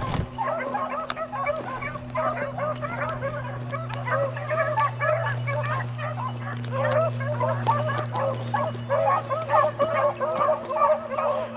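A pack of beagles baying on a rabbit track, many short overlapping calls a second, over a steady low hum.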